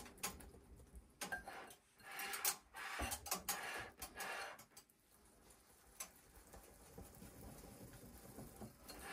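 Wire whisk stirring thick batter in a glass bowl: faint, irregular light ticks and scraping of the wires against the glass.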